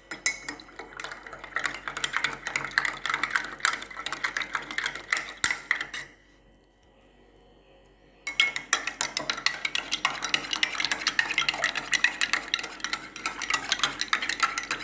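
A spoon stirring powdered drink mix into cold water in a glass, clinking rapidly against the sides. The stirring stops for about two seconds midway, then starts again.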